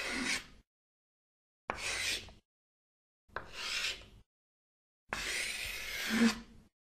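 Crayon scribbling on paper as a sound effect, in short strokes with silence between them: one stroke ends just after the start, then three more follow, each under two seconds, the last the longest.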